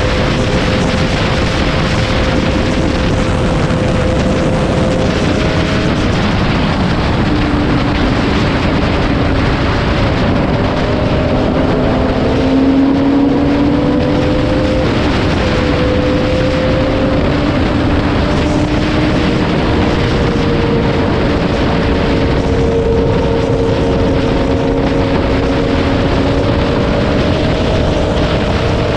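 Sport bike cruising at highway speed: a heavy, steady wind rush on the microphone over the engine's hum, whose pitch drifts slowly up and down with the throttle.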